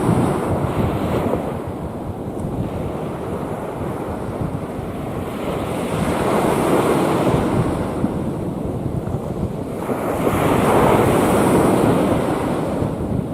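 Rough sea waves surging and breaking, swelling about six seconds in and again louder about ten seconds in, with wind buffeting the microphone.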